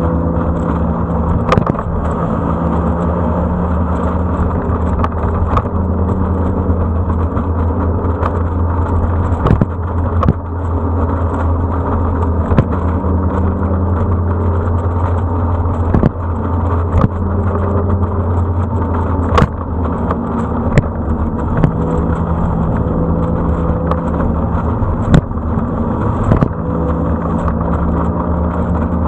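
Motorcycle engine running steadily at road speed with wind rushing past the mounted camera. The engine note shifts a few times, and a few sharp clicks break through.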